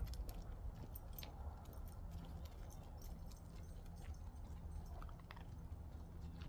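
Footsteps of a person and a pack of dogs moving briskly on a driveway, with scattered small clicks and ticks over a steady low rumble.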